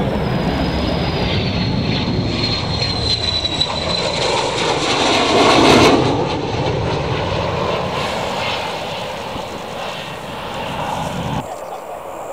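F-16 Fighting Falcon fighter jet flying past low: its single turbofan engine noise builds to a peak as it passes about six seconds in, then fades as it moves away. A high whine falls in pitch as the jet approaches.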